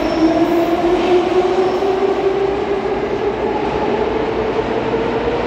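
Type 81-540.2 metro train accelerating away from the platform: its traction motors give a whine that slowly rises in pitch over the rumble of the wheels on the rails, echoing under the station vault.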